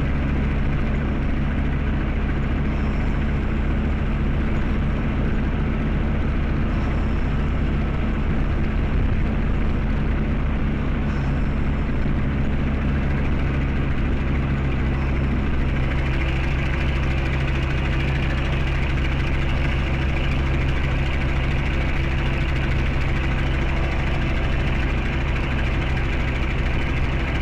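An engine idling steadily, its sound getting a little brighter about sixteen seconds in.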